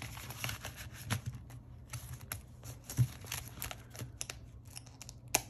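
Paper banknotes and a clear plastic cash envelope being handled: light rustling with a string of small clicks and taps, and a sharper click about three seconds in and again near the end.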